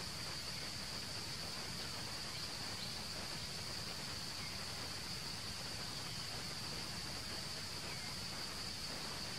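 Steady high-pitched drone of insects, unchanging throughout, over a soft even hiss of outdoor background noise.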